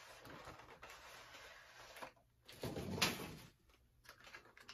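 Packaging being handled: a steady rustle, then a short lull and a louder scrape about three seconds in.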